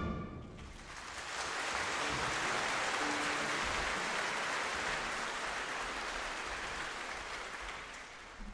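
Audience applause: dense clapping that builds up about a second in, holds steady, and fades away near the end.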